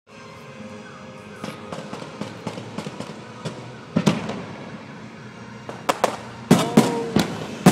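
Fireworks display: a rapid string of sharp cracks and big thuds from aerial shells bursting. It starts with smaller pops and grows heavier, with several loud booms in quick succession in the last couple of seconds.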